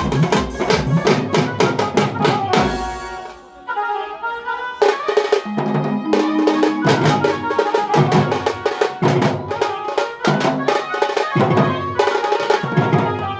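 Tasha drum band playing fast, dense stick strokes with a melody over the drumming. The drumming breaks off for about a second around three seconds in, then comes back in rhythmic phrases under the tune.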